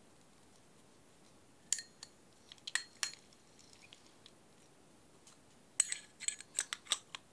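Small metal clicks and clinks from a Shakespeare Wonderspin 2661 spincast reel being handled, with its copper front cover being fitted back over the spool. The clicks are scattered around two to three seconds in, then come as a quick run of about eight near the end.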